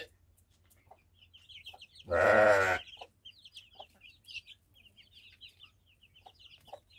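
Young chickens peeping in quick, short, high notes over and over, with a few soft low clucks. About two seconds in comes one loud animal call lasting about half a second.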